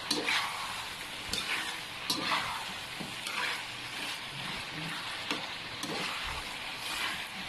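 Chicken gizzard adobo sizzling in a pan as the last of its sauce cooks off, with a metal spatula stirring and scraping against the pan about once a second.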